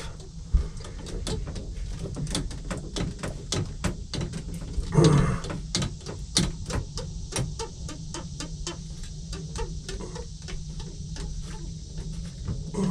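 Hands working a power steering hose loose on a sterndrive boat engine: a run of irregular small clicks and knocks, several a second, with one louder burst about five seconds in.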